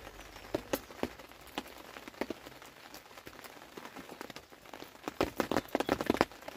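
Rain falling, with scattered sharp drip-like taps, then a denser run of clicks and taps in the last second and a half.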